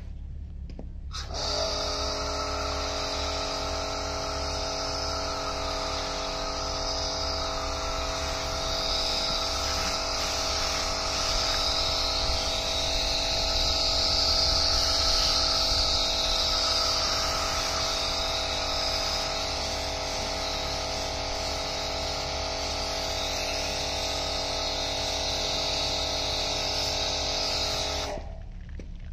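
Pressure washer running with a steady whine over the hiss of snow foam spraying from a foam lance. It starts suddenly about a second in and cuts off suddenly about a second before the end, as the trigger is pulled and released.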